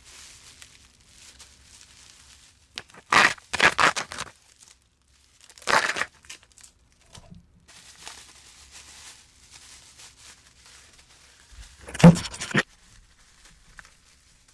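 Bubble wrap and plastic packaging being torn and pulled open, in short loud bursts about three to four seconds in, again about six seconds in and near the end, with faint crinkling between.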